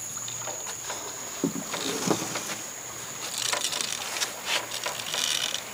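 Wooden rope ferry crossing a river, water washing against its hull, with two knocks about one and a half and two seconds in and a stretch of hissing in the second half.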